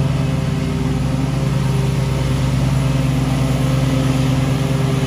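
Encore zero-turn riding mower's engine running steadily under load as the mower cuts grass.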